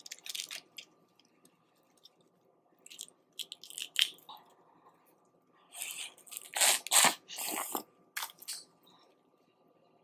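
Close-up eating sounds of boiled crawfish in garlic butter sauce: shells crunching and crackling, and wet chewing, in irregular bursts, loudest a little past the middle.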